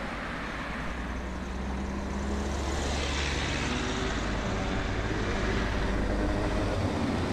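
Steady road-traffic noise, a low rumble under an even hiss.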